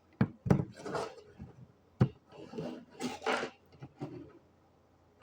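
A few sharp knocks mixed with short scraping and rubbing noises, irregularly spaced, stopping about a second before the end.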